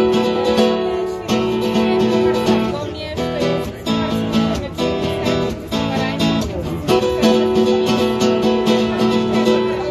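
Electro-classical nylon-string guitar strumming chords in a solo instrumental passage, with no singing.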